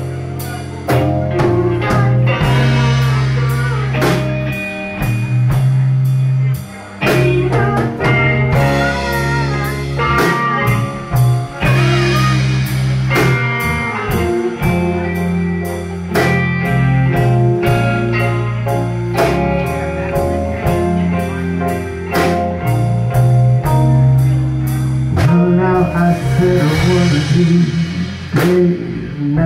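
Live blues band playing an instrumental passage: electric guitar lead with bent, wavering notes over bass, drum kit and keyboard.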